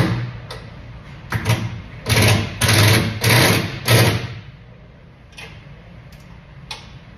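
Handheld power driver run in about six short bursts over the first four seconds, driving fasteners during assembly of a truck hood. A couple of faint clicks follow.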